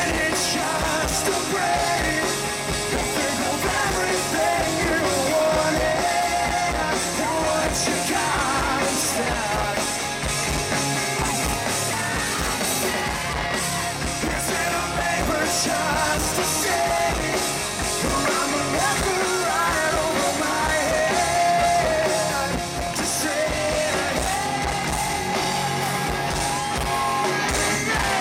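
Live rock band playing loud: a male lead singer over distorted electric guitars through Marshall amps, bass and a pounding drum kit.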